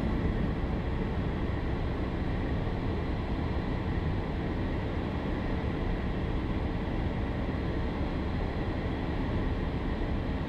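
Embraer Phenom 300's twin turbofan engines at idle, heard inside the cockpit as a steady rush with faint steady whines, during the slow final taxi to the parking spot.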